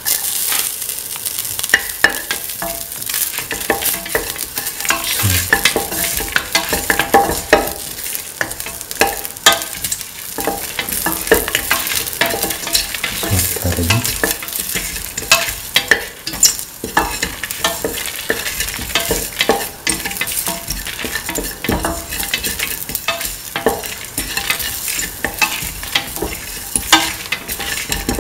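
Fennel seeds, dried red chilies and ginger sizzling in hot oil in a stainless steel pan. A spatula stirring them against the metal makes frequent sharp clicks and scrapes.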